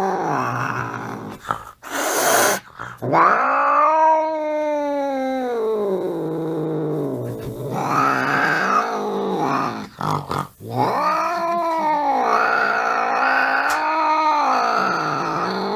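Angry cat yowling: long, drawn-out howls that rise and fall in pitch, broken by short pauses about two and ten seconds in.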